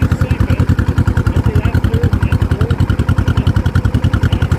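Small tractor engine running steadily as the tractor is driven in gear, with a fast, even chug.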